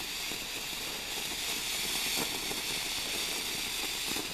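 Ground fountain firework hissing steadily as it sprays a column of sparks.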